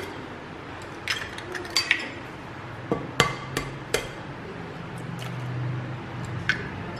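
Two eggs being cracked open over a glass mixing bowl: about half a dozen sharp taps and clicks of eggshell breaking.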